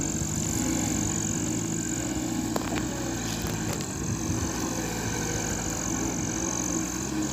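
Motor vehicle engine running steadily at an even, low pitch, with a steady high-pitched whine above it and a few faint clicks.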